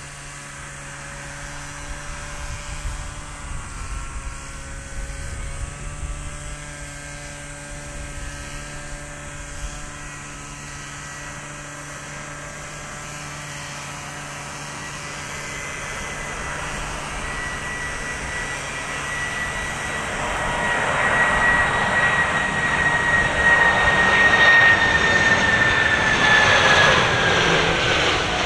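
Boeing 747-400F freighter's four turbofan engines whining on approach, growing steadily louder as the aircraft nears, with a high whine that falls slightly in pitch over the last few seconds.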